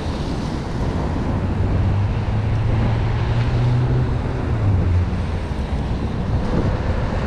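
Traffic on a rain-wet city street: cars passing with tyre hiss, and a vehicle engine's low drone that swells from about two seconds in and fades near five seconds.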